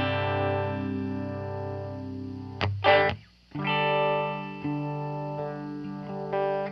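Electric guitar chords played through an Electro-Harmonix The Worm modulation pedal, ringing out with a swirling effect. About halfway through come a couple of sharp strikes and a brief drop-out, then fresh chords ring on.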